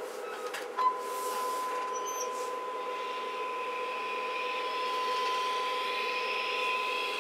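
A steady single-pitch audio test tone starts with a click about a second in, over a constant electrical hum from the bench equipment. The tone is the kind used to modulate a CB radio's AM carrier when checking modulation on an oscilloscope.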